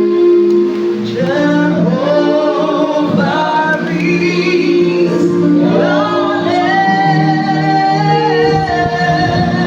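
Gospel praise-and-worship music: steady held instrumental chords, with singing coming in about a second in, the voices holding and sliding between notes.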